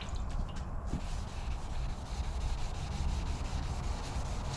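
Plastic headlight lens being wet-sanded with a 3000-grit sanding pad: a steady, evenly repeating scrubbing.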